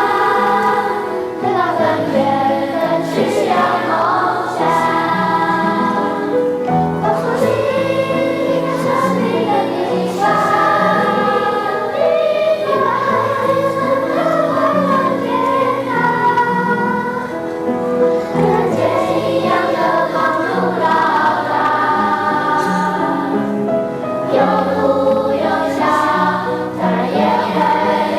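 A school choir singing with several voices together, holding and moving between sustained notes.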